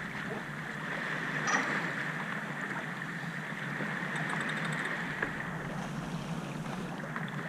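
Steady rush of water and wind around a sailboat under way, with a brief click about a second and a half in.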